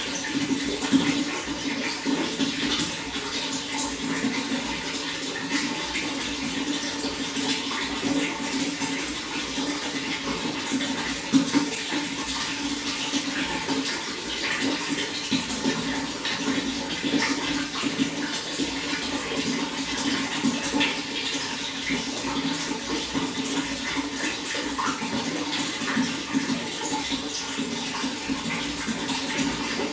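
Running water flowing steadily, with a constant low rush and many small splashes and trickles over it.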